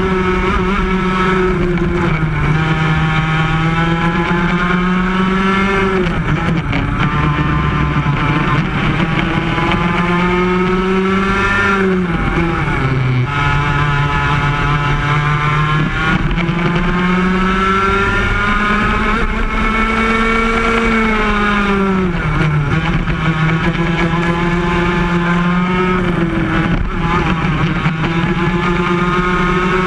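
Yamaha KT100 two-stroke kart engine racing around the track, its pitch climbing steadily on the straights and dropping sharply about four times as the kart slows into corners.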